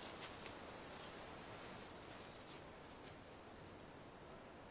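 Insects chirring in a steady high-pitched drone, growing fainter from about two seconds in.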